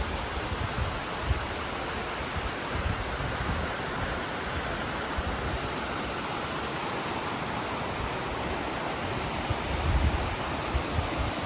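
Waterfall rushing close by, a steady dense hiss of falling water, with low gusts of wind rumbling on the microphone, stronger near the end.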